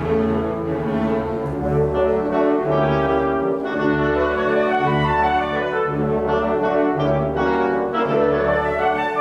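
Symphony orchestra playing classical holiday music, the brass section to the fore over strings and a bass line that moves about once a second.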